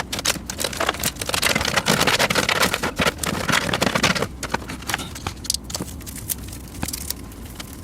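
Hands handling plastic PC case parts: a busy run of clicking, scraping and rustling for about four seconds, thinning to scattered clicks after that.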